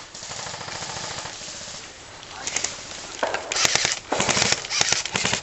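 Airsoft guns firing rapid automatic bursts, a fast clatter of shots. It eases off after about a second, then louder, denser bursts start about three seconds in.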